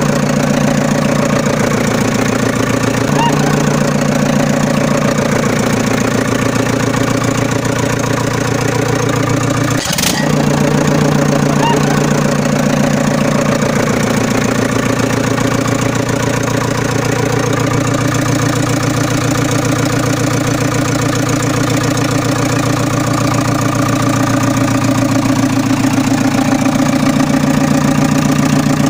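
Engine idling steadily, an even low running note that stays at one speed, with one sharp click about ten seconds in. The hand-pushed toy loader makes no such sound itself, so this is a dubbed engine sound.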